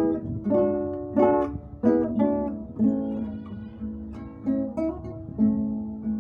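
Acoustic guitar playing a slow piece, plucked chords and notes struck about once or twice a second and left to ring.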